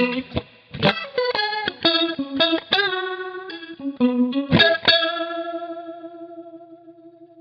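Electric guitar played through a Boss RT-20 Rotary Ensemble pedal, its rotating-speaker (Leslie-style) swirl on a picked riff. About five seconds in, a final note is struck and left to ring, fading away.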